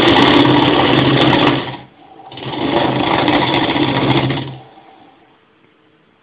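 Small electric motor in a homemade gadget of computer parts running in two bursts of about two seconds each, buzzing and rattling the parts, then dying away to a faint hum.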